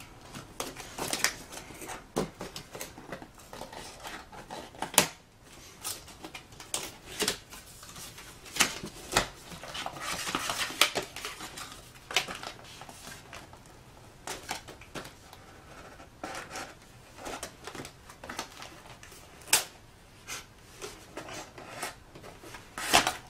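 Thin cardboard product carton handled and opened by hand: flaps folded back and an inner carton worked loose. Irregular scraping and rustling of cardboard, with scattered sharp snaps and taps; the loudest come about five seconds in and near the end.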